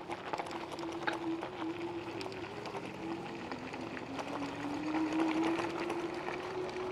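Electric scooter motor whining steadily, its pitch dipping about halfway through as it slows and climbing back as it speeds up again, with tyres crackling over a gravel road.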